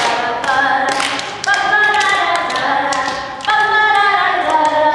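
Voices singing a song unaccompanied, with sustained notes, and several sharp taps.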